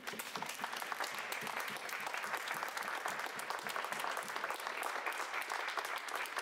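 An audience applauding steadily, many pairs of hands clapping at once.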